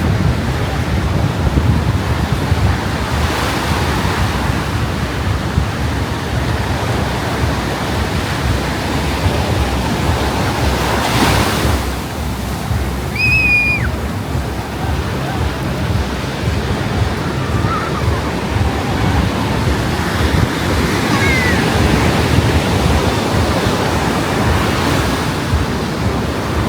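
Ocean surf breaking and washing up the beach in steady swells, with wind rumbling on the microphone. A brief high whistle-like tone sounds about halfway through.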